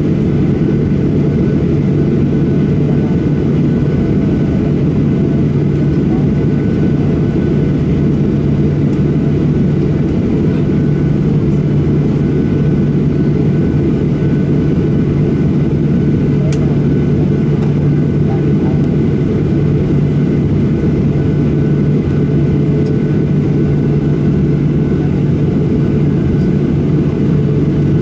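Cabin noise inside a Boeing 737-800 taxiing at low speed, its CFM56-7B turbofans at idle: a steady low drone with a constant low hum running through it.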